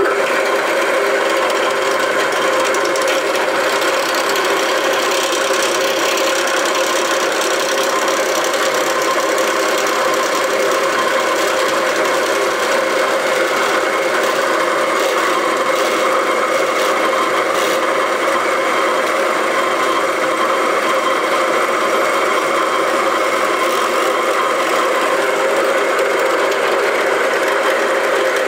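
Bench drill press running steadily under load, its chuck spinning a hot-melt glue stick pressed into a wooden board so that friction burns a hole. A constant mechanical hum with a steady whine and rattle throughout.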